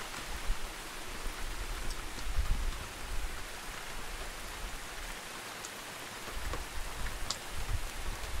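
Steady rain falling, heard from inside a wooden hut, an even hiss with a few sharp single drop ticks, the clearest about seven seconds in.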